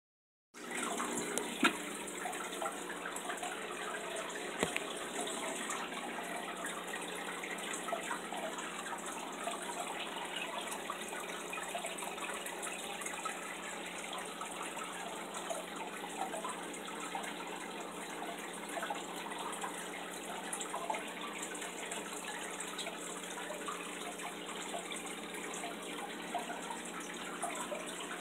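Aquarium water running steadily, a continuous trickle and splash with a low even hum underneath, typical of a tank's filter or aeration. There is one light tap about a second and a half in.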